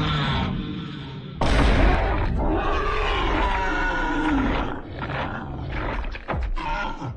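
Giant movie monster roaring, from the film's sound effects. A loud sudden hit comes about a second and a half in, then a long roar that bends in pitch, followed by quick crashing hits.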